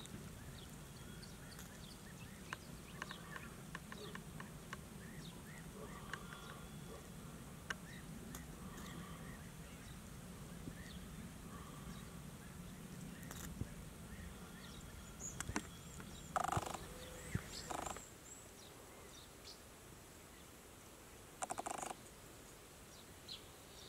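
Birds at a drinking pool: faint scattered chirps and clicks over a low steady background hum, with two short harsh rasping bursts, one about two-thirds through and one near the end.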